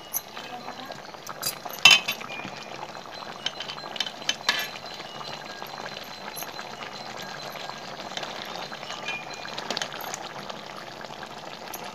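Chicken curry bubbling in a metal pot on the stove, with a few sharp clinks of a steel spatula against the pot as it is stirred. The loudest clink comes about two seconds in, and another cluster comes around four seconds in.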